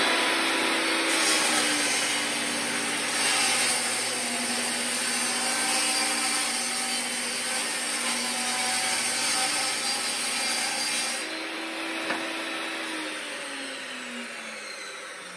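Portable table saw ripping a poplar board lengthwise with its blade tilted to a 5-degree bevel: a steady, loud cutting noise over the motor's hum. The noise eases about eleven seconds in as the cut ends, and the blade winds down with a falling hum near the end.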